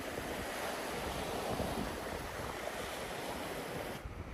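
Small waves washing onto a sandy beach: a steady hiss of surf that cuts off suddenly near the end.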